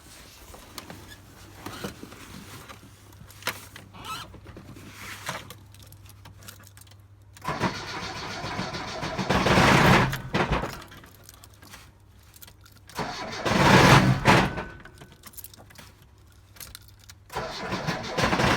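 ZAZ Slavuta engine being cranked three times by its starter, each try a few seconds long and cutting off suddenly, after keys jangling and small clicks at the ignition. The engine knocks and does not stay running; the owner puts the knock down to a flywheel wobbling with the clutch basket and suspects a cracked crankshaft.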